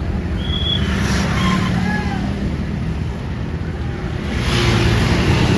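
Roadside traffic: a heavy vehicle's engine running, with the noise swelling as it passes close near the end, and voices in the background.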